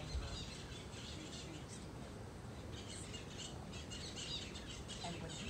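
Birds chirping in many quick, short, high calls, thickest about three to five seconds in, over steady outdoor background noise, with a brief low thump right at the start.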